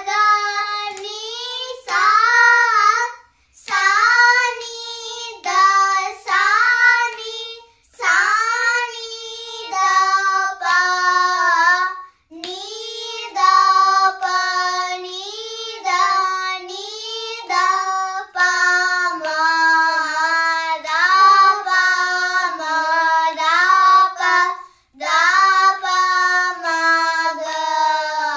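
Two children singing a Carnatic alankaram exercise in unison, the sol-fa syllables of the scale set to misra jati jhampa tala. The melody moves in stepwise phrases, with brief breaks for breath about 3, 8, 12 and 25 seconds in.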